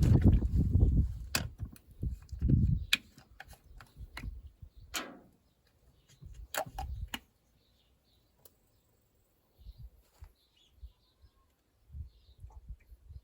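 Oil pouring, trailing off within the first second or two, then scattered clicks and knocks of metal and plastic being handled. Faint bird chirps come in near the end.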